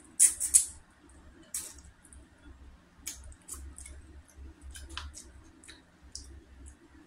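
Wet mouth smacks and sucking clicks from someone eating a salmon head and working meat off the jaw bones. A cluster of loud smacks comes in the first second, then scattered smaller ones.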